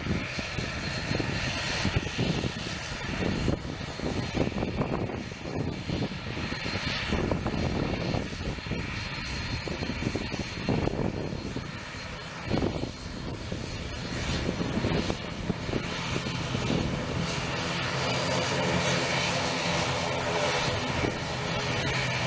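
Citilink ATR 72 twin-turboprop airliner taxiing past, its engines and propellers running with a steady drone. In the last several seconds a steady, layered propeller hum comes to the front.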